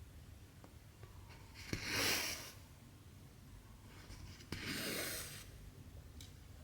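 Cotton embroidery thread pulled through cross-stitch fabric twice, each pull a hissing swish about a second long that comes right after the sharp tick of the needle going through the cloth.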